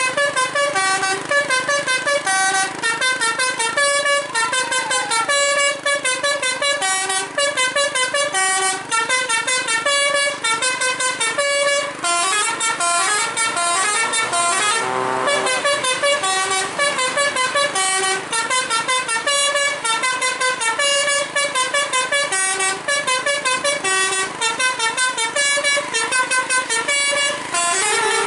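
Telolet Basuri V3 bus horn playing a fast melody, one short horn note after another with hardly a pause. About halfway through there is a brief sliding sweep in pitch.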